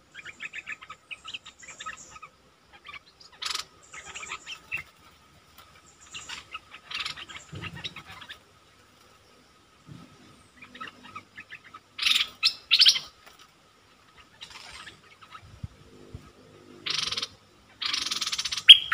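Stripe-throated bulbul calls from a caged decoy bird luring wild bulbuls: short chirps and rapid chattering phrases, with louder harsh calls about twelve seconds in and again near the end.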